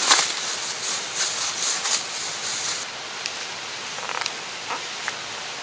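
Thin clear plastic crinkling and rustling as it is handled by hand for about the first three seconds. Then it goes quieter, with a few light clicks of metal kitchen tongs picking up slices of raw pork loin.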